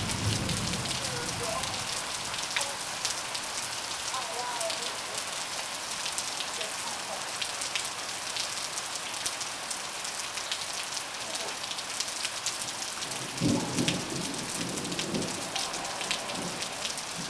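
Heavy rain of large drops, a steady hiss with many separate drop hits ticking on surfaces. About three-quarters of the way through, a brief louder low burst breaks in.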